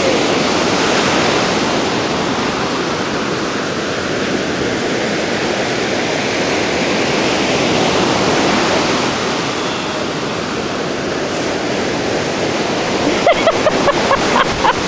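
Ocean surf breaking and washing up a sandy beach: a steady rush of water noise that swells and eases. Near the end comes a short run of clicks.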